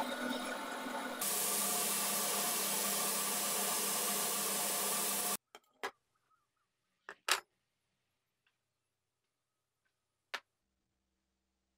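Metal lathe running with a part spinning in its chuck, turning louder and hissier about a second in, then cutting off abruptly about five seconds in. After that, near silence broken by a few short knocks as metal parts are handled on a workbench.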